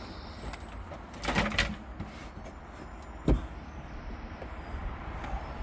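Handling noise from car interior parts being worked on: a brief scrape or rustle about a second in and one sharp knock a little after three seconds, over a low steady hum.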